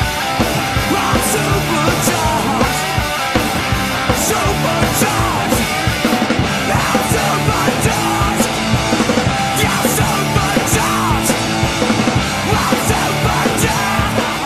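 A loud rock song with sung vocals over a steady drum beat.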